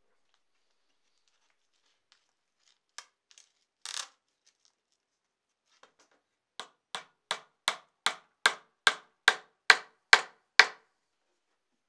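Small hammer striking a turned wooden handle on a wooden workbench: a few light taps, then a steady run of about eleven blows, roughly two and a half a second, each a little louder than the last.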